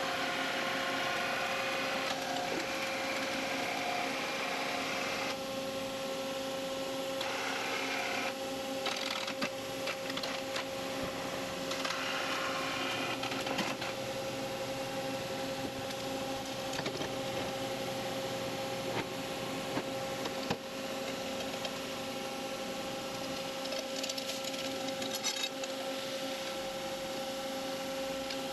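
Machine shop background: steady hum of running machinery with a constant mid-pitched whine. Over it come a few light metal knocks and clicks as steel bars are set on a fixtured workpiece on a horizontal mill table.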